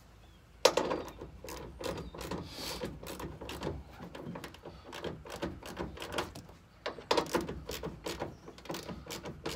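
Hand ratchet clicking in quick irregular runs as it tightens the screws holding a plastic fender flare to the truck.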